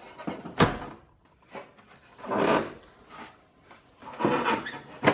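Steel car fender being worked loose from the body: sharp metal knocks and clunks with longer scraping and rubbing as the panel is pried and shifted free.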